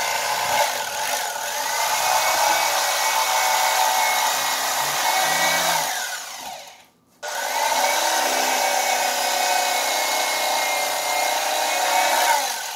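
Electric fillet knife running as it saws through a sail catfish fillet. About halfway it is switched off, its pitch falling away, then started again, rising back up to speed, and it runs until it winds down near the end.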